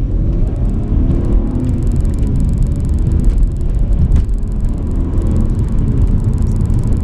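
BMW E92 coupe's straight-six engine pulling through the gears, its note rising and falling with the revs, over a steady low rumble of tyres and road.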